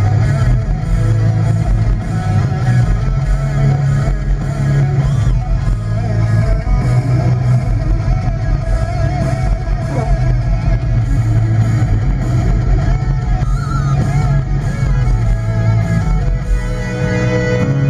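Rock music with guitar and bass playing steadily.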